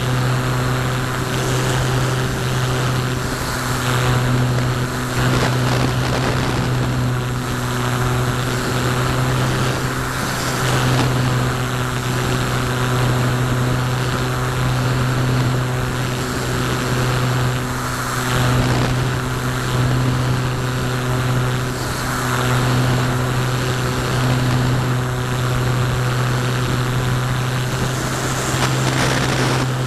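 Electric brushless motor and propeller of a Parkzone Radian RC glider running steadily under power, heard from a camera on the airframe: a constant drone with wind rushing over it.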